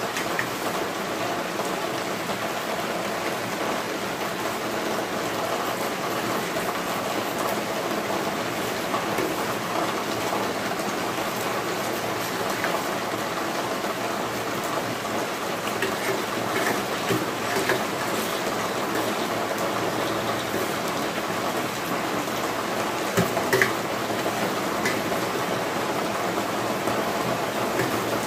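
Heavy rain falling steadily, an even hiss, with a few clinks of steel spoons against steel plates in the second half.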